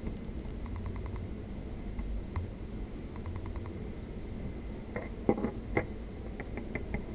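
A graphics card being handled on a workbench. It is knocked and set down about five seconds in, as it is turned over, with small clicks around the knocks. Two brief runs of rapid light ticking come earlier, all over a steady low hum.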